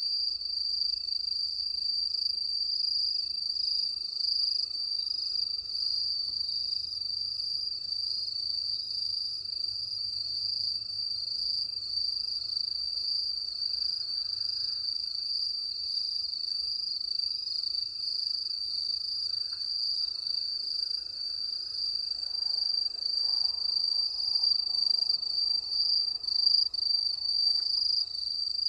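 Crickets chirping, a steady unbroken high trill.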